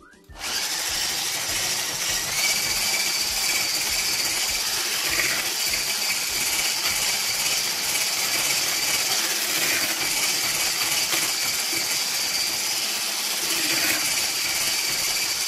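Electric mixer with a single whisk attachment, switched on about half a second in and running steadily with a high whine as it beats condensed milk into whipped topping in a plastic bowl.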